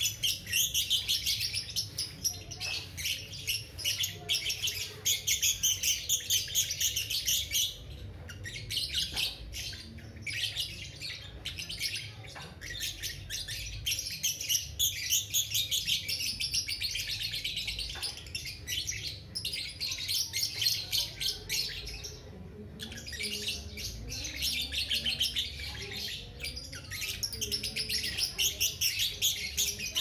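Young lovebird (balibu) chattering in long runs of rapid, high ticking notes: the long 'ngekek' song of a bird in full voice (gacor). It breaks off briefly about a quarter of the way in and again about three quarters in, then resumes.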